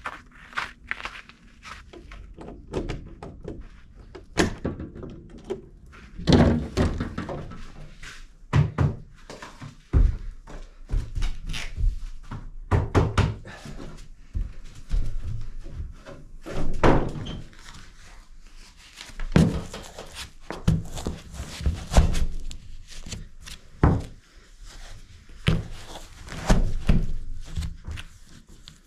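A series of irregular thuds and knocks, some sharp and some dull, with no steady rhythm.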